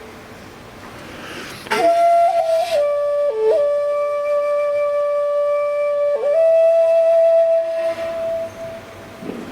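A flute playing a slow solo melody. After a breathy attack about two seconds in, it holds long notes with quick ornamental flicks between them, then fades near the end before a new breath starts the next phrase.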